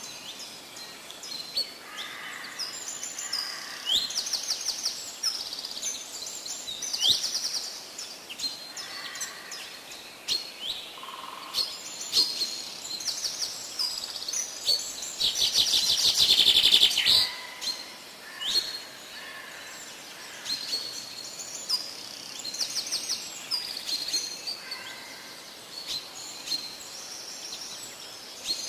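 Several birds chirping and calling over and over in short, high chirps, with a loud, fast trill about halfway through.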